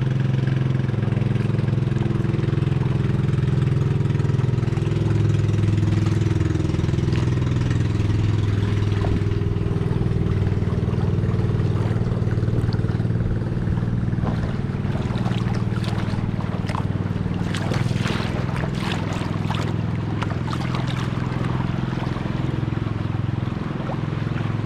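A boat engine running steadily at a constant pitch. Water splashes and crackles over it for several seconds from about fifteen seconds in.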